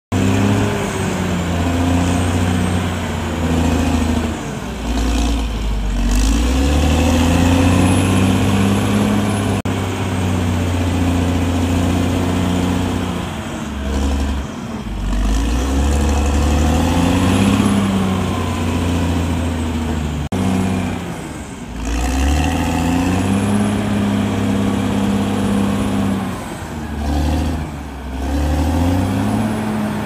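CAT D6R XL bulldozer's diesel engine working under load as the dozer pushes soil. Its pitch sags and climbs back up several times as the load and direction change, with a few sharp clanks.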